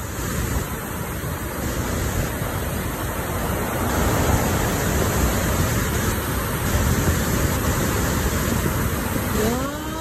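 Steady, loud rush of the Langfoss waterfall, a heavy cascade of water pouring down rock and over boulders.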